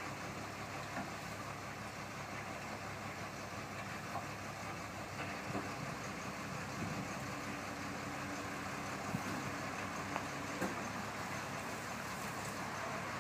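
Backhoe's diesel engine running steadily, with a few faint knocks.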